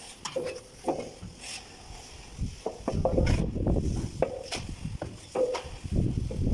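Long straightedge rule scraping and dragging over wet cement-sand wall plaster as it is screeded level, with a few light knocks. The scraping gets louder about halfway through.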